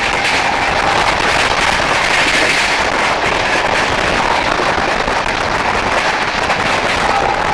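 Loud, steady crackling rush of a train running on the line: wheels on rails with a continuous rattle and no clear tone.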